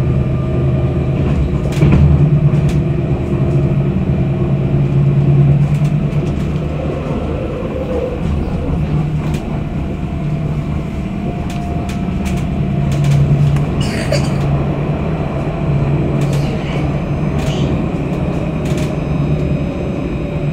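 Tram running at speed, heard from inside the car: a steady low rumble of motors and wheels on the rails, with a few short clicks and rattles.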